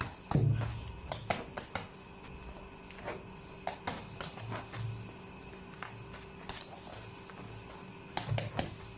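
Punches and kicks landing on a hanging heavy bag: irregular dull thuds, the loudest about half a second in and a quick run of hits near the end.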